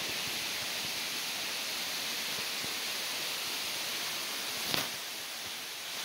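Steady rushing of falling water, a waterfall or creek, with one short click about three-quarters of the way through.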